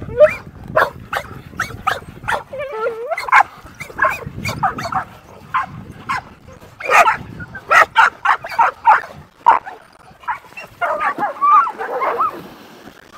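Several dogs barking and yelping at once in quick, short barks, excited for a thrown ball.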